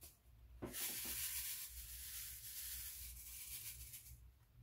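Resin diamond-painting drills rattling in a ribbed plastic drill tray as it is shaken side to side, lining the drills up in its grooves. A steady, hissing rattle starts about a second in and stops shortly before the end.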